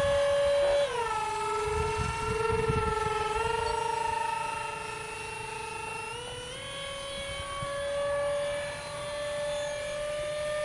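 Twin 64 mm electric ducted fans of a Dynam A-10 RC jet whining in flight. The whine drops in pitch about a second in, then climbs back in two steps, a small one a few seconds later and a larger one just past the middle. Wind gusts on the microphone rumble underneath early on.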